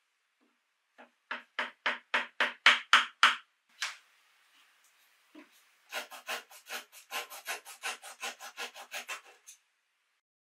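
Flush-cut handsaw cutting protruding 8 mm wooden dowels flush with a teak frame: two runs of quick, short saw strokes, the second longer and faster, with a couple of single strokes in between.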